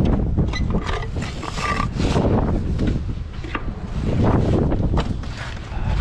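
Wind buffeting the microphone, with scattered scrapes and light knocks of a steel trowel working mortar against brick.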